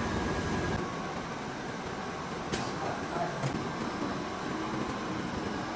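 Steady machinery noise of a battery module assembly line. A low rumble drops away about a second in, and two sharp clicks come about a second apart near the middle.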